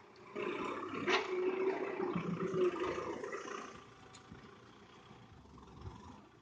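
Kubota tractor's diesel engine running under load as it pulls a disc plough through dry soil. The sound fades to faint about four seconds in.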